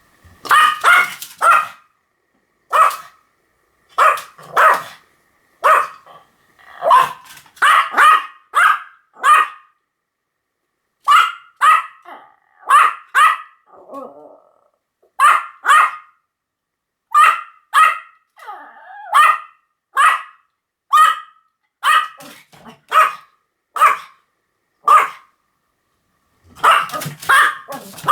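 Pomeranian barking repeatedly: short, sharp, high-pitched yaps, singly and in quick runs of two to four, with a brief low growl or grumble between some of them.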